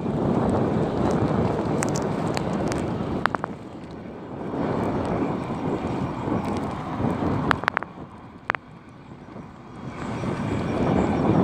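Wind buffeting the microphone and tyre rumble from an electric mountain bike ridden fast on a paved road. The noise swells and fades in three waves, with scattered sharp clicks and rattles.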